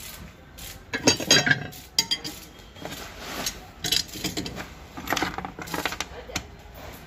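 Steel weeder blades being handled and fitted onto the rotor flange, clanking and clinking against the flange and bolts: a string of sharp metal knocks, the loudest cluster about a second in.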